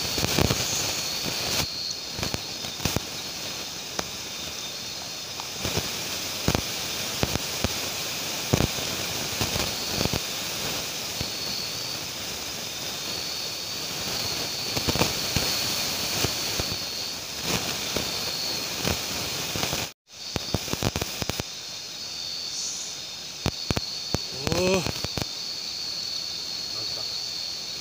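Small stick campfire crackling with irregular sharp snaps, over a steady high insect trill; a person's voice is heard briefly near the end.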